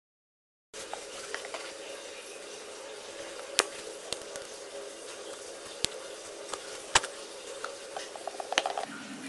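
Glue-based slime mixture being stirred in a container: soft scraping with a few sharp clicks of the utensil against the container, the last ones coming in a quick cluster near the end.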